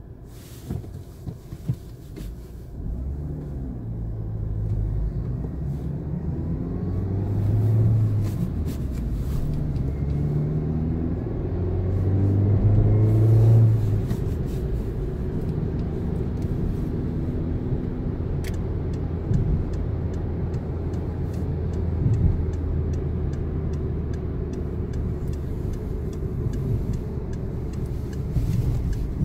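Car engine heard from inside the cabin, pulling away from a stop and accelerating through the gears, its pitch rising twice before settling into steady cruising with road noise. A light, regular ticking comes in near the end.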